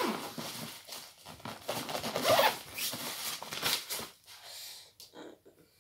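Clothes and a suitcase being handled while packing: several bursts of rustling and scraping that die down about four seconds in.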